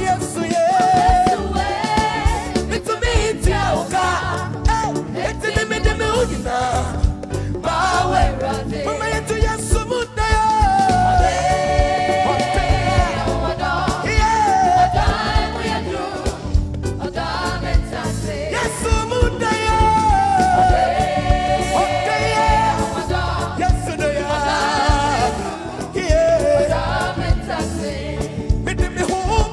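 Live African gospel music: a lead voice sings a bending melody over a band with a steady beat.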